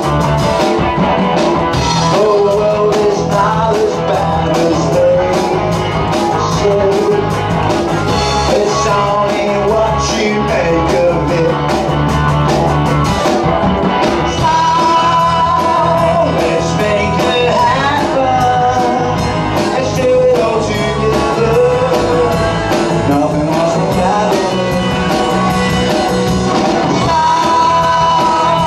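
Live rock band playing: electric guitars and drum kit over a steady beat, with singing.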